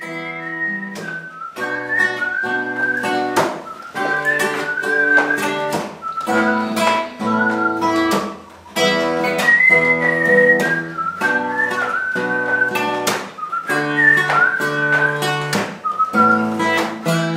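Acoustic guitar strummed in a steady rhythm of chords, with a whistled melody wavering above it.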